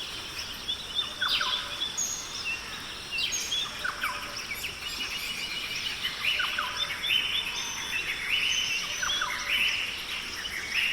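Several birds chirping and calling over one another in short, repeated calls, over a steady background hiss.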